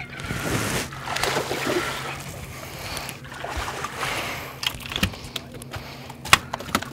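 A hooked bass splashing and thrashing at the water's surface beside a boat as it is reeled in. This is followed, from about four and a half seconds in, by a series of sharp knocks as the fish is swung aboard and flops on the boat deck.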